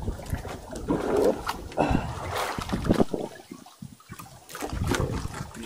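Sea water splashing and sloshing against the side of a small outrigger fishing boat, in irregular surges with a brief lull past the middle.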